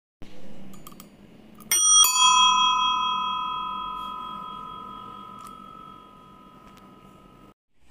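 A bell struck twice, the two strikes a third of a second apart about two seconds in. Its ring holds and slowly fades for several seconds, then cuts off suddenly near the end.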